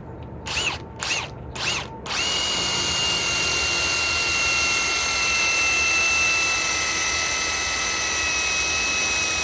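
Ryobi PSBIW25 compact impact wrench worked in three short trigger blips, then run steadily for about eight seconds with a high motor whine, driving a lag screw into wood.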